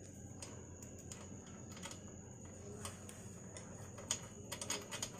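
Faint, scattered metal clicks of exhaust bolts being handled and started by hand into a stand-up scooter engine's exhaust port, with a small cluster of clicks near the end. A faint steady high whine runs underneath.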